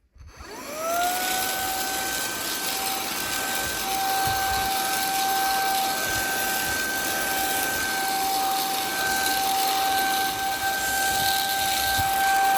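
Cordless stick vacuum cleaner's motor spinning up, running with a steady high whine and rush of air as it vacuums a sofa, then switched off and winding down near the end with a falling pitch.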